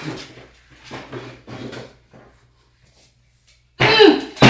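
Soft eating noises, then a dog barking loudly about four seconds in, a few quick pitched barks that each fall in pitch.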